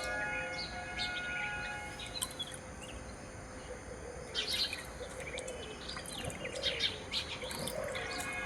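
Birds chirping with many short calls, sparse at first and busier in the second half.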